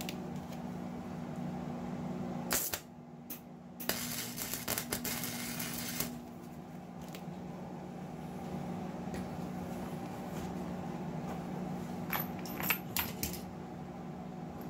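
Arc welder tacking a steel chain link: two short crackles as the arc is struck, then about two seconds of steady arc sizzle, over a constant low hum. Near the end, a few sharp metal clinks as the chain is handled.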